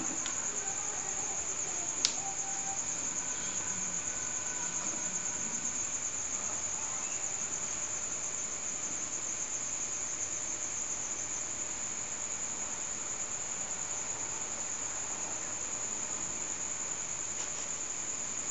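Crickets trilling steadily, a continuous high-pitched pulsing chirr, with one sharp click about two seconds in.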